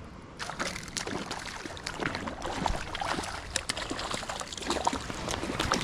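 Water splashing and sloshing in an irregular crackle, starting about half a second in.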